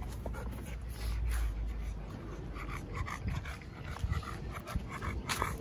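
A dog panting close to the microphone, with a low rumble of handling on the microphone in the first two seconds and a sharp click near the end.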